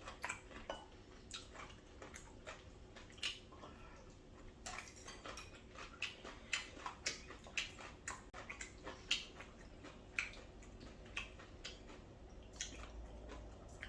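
Irregular light clicks and taps of eating utensils against dishes, several a second, mixed with soft wet sounds of curry rice being stirred and eaten.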